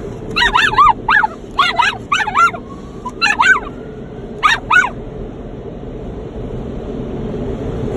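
Miniature schnauzer whining in a run of short, high yips that rise and fall in pitch, stopping about five seconds in. Under it, the steady noise of the car wash outside the car grows louder toward the end.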